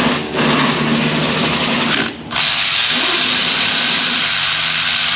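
Powered ratchet spinning a socket to run out a starter mounting bolt, running in two long stretches with a brief stop about two seconds in.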